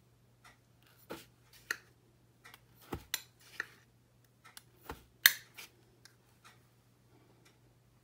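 Tablespoon knocking and clinking against the mixing bowl as spoonfuls of sugar are tipped in: a string of irregular sharp taps, the loudest about five seconds in.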